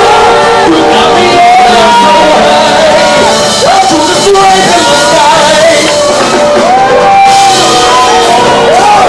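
Live vocal performance: a voice singing loudly in long held notes that slide up and down, over steady music accompaniment.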